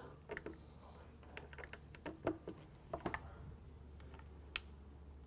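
Faint scattered clicks and taps of an Ethernet cable and its plastic connectors being handled and plugged into a radio unit and a PoE injector.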